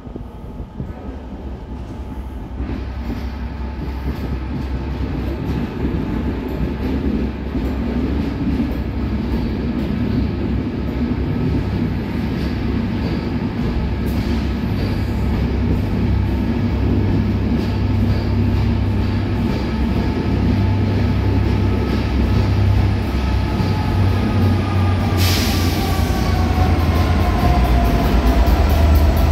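Diesel-hauled passenger train pulling out, Mk4 coaches rolling past with steady wheel-on-rail noise, and a Class 67 locomotive propelling at the rear. The locomotive's EMD diesel engine drone grows louder as it comes up. Near the end its whining tones drop in pitch as it passes, and there is a brief hiss.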